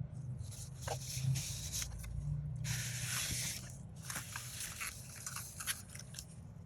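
Product packaging being handled by hand: rustling, crinkling and scraping with a few sharp clicks, the longest rustle about three seconds in. A low steady hum sits underneath.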